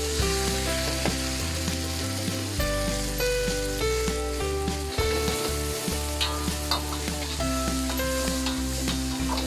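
Food sizzling steadily in hot oil in a pan as it is stirred, with small clicks from the utensil, under light background music.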